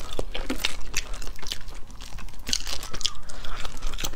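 Boiled crayfish shells cracking and crunching as they are twisted apart and peeled by hand: a quick run of sharp clicks and crackles.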